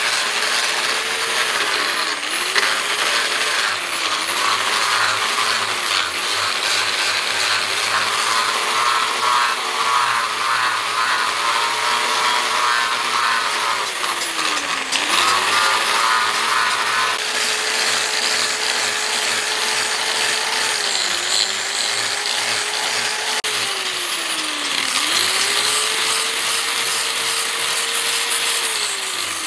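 Electric angle grinder with a sanding disc, running steadily as it grinds and polishes a forged steel cleaver blade. Its motor pitch sags several times as it is pressed into the work, then picks back up.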